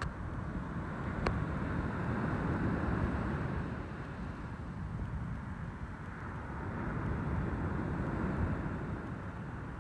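Steady low rumble of surf washing on the beach, swelling and easing about every five seconds.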